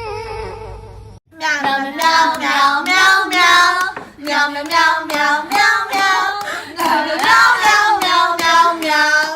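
A short falling whine, then after a brief break a high voice singing in short phrases that rise and fall.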